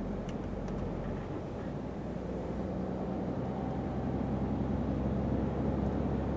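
Truck's diesel engine running at road speed with tyre and road noise, heard from inside the cab; a steady low drone that grows slightly louder after about two seconds.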